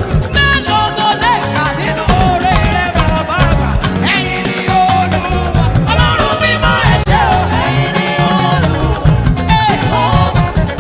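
Live church band music with an upbeat dance beat: bass, drums and guitars, with a wavering lead melody line over them.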